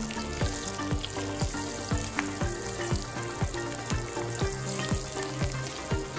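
Tadka sizzling: mustard seeds, sesame seeds and slit green chillies frying in hot oil, stirred around the pan with a silicone spatula. Background music with a steady beat plays along.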